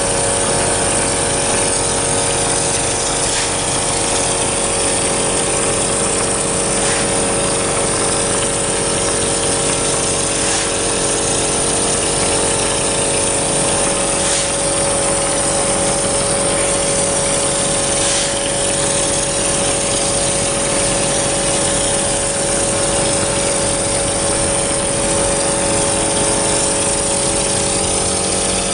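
2B mortar spraying machine running steadily, an even motor hum with a hiss, as wet mortar is sprayed from a hose-fed gun onto a brick wall. A faint tick comes about every three and a half seconds during the first twenty seconds.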